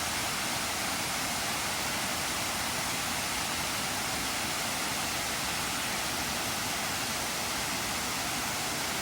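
Mountain stream cascade rushing over rocks, a steady, even rush of water.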